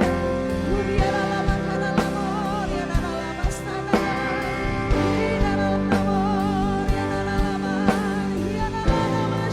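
Live worship band playing a slow song with a singer's voice over it and a steady beat of about one stroke a second.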